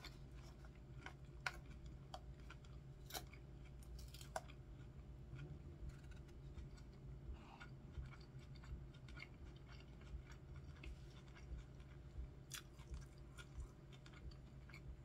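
A person chewing mouthfuls of crisp iceberg-lettuce salad up close, with soft crunches and a few sharp clicks, over a faint low hum.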